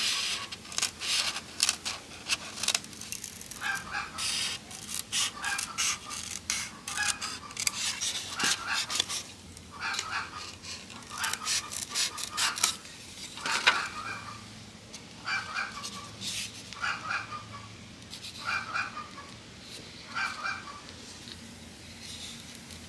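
Scissors snipping through a white disposable clamshell lunch box along its hinge: a long run of short, sharp cuts and crunches, packed closely at first and spaced about once a second later on.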